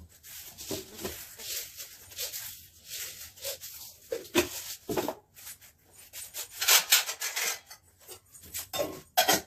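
Kitchen work at a counter: steel utensils and pots being handled, giving irregular knocks, clinks and rubbing, with a louder stretch of scraping noise about seven seconds in.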